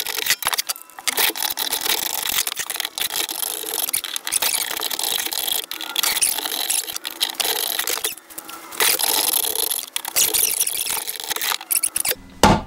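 Drawknife shaving wood from the end of an axe handle clamped in a shave horse: repeated scraping, rasping strokes with brief pauses between runs.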